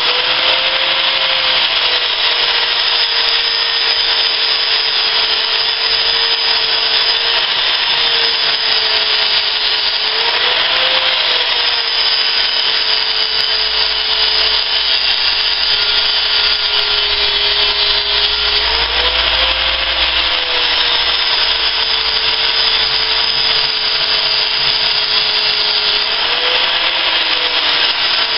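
Angle grinder grinding weld spots and surface rust off the metal top of a 7-inch engineer's vise: a steady, loud grinding. The motor's pitch sags under load and picks back up a few times as the disc eases off the metal.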